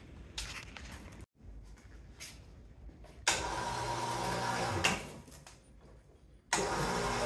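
Hoist motor running in two short bursts, each a second or two long, starting and stopping abruptly, as it lifts a drum of scrap steel onto a hanging scale. Light knocks of the strap and scrap being handled come before it.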